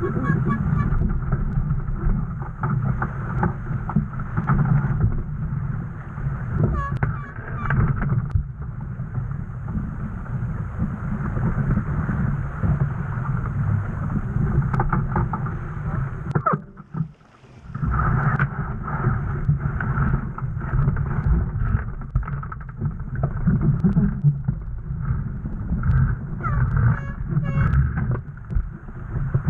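Wind buffeting the microphone and water rushing along the hull of a Laser Vago sailing dinghy under way, with a brief drop-out about seventeen seconds in.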